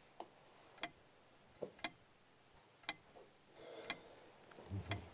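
A clock ticking faintly, one tick a second, with a few softer knocks and rustles of movement between ticks and a soft low thump just before the end.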